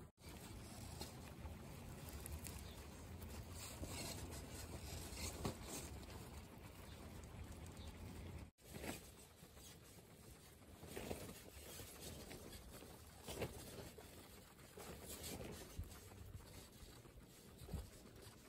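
Guinea pigs chewing and nibbling fresh-cut grass, with soft crackling crunches and rustling of the grass and straw.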